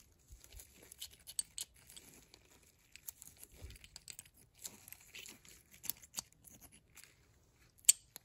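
Faint rustling of disposable gloves handling a disassembled 3/4-inch drive ratchet head, with scattered light clicks of the parts and one sharper click near the end.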